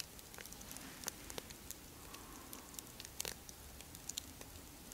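Wood campfire crackling faintly, with small irregular pops and snaps and a louder snap about three seconds in.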